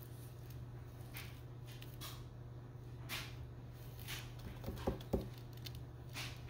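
Blue-tongued skink biting and mouthing a live hornworm: soft rustles and two sharp clicks close together about five seconds in, over a steady low hum.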